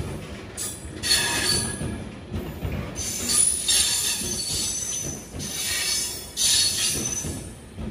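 A train of yellow bogie box wagons rolling past with a steady low rumble. High-pitched squeals from the wheels come and go every second or so.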